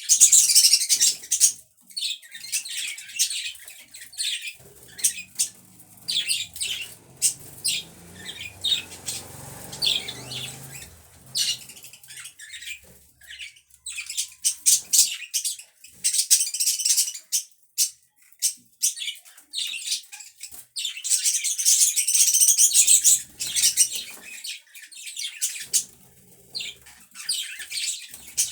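Budgerigars chirping and chattering in quick, overlapping high-pitched bursts. The chatter is busiest in the first two seconds and again about twenty seconds in.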